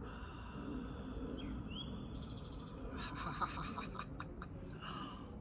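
Birds chirping over a steady low outdoor background hum, with a short rising chirp and a quick trill about two seconds in, and a few light clicks about three seconds in.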